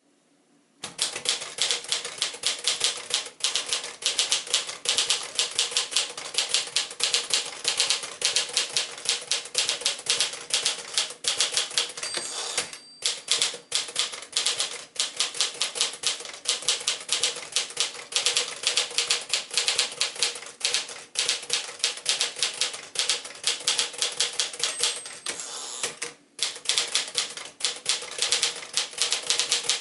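1955 Smith-Corona Silent-Super manual typewriter being typed on fast, a rapid stream of key and typebar strikes. Twice a short high ring of the margin bell sounds, each followed by a brief pause in the typing.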